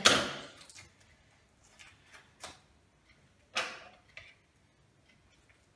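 Handling noise from opening a cardboard product box with scissors: a sharp click at the start that trails off briefly, then a few scattered faint clicks and short rustles of cardboard and scissors on a wooden table.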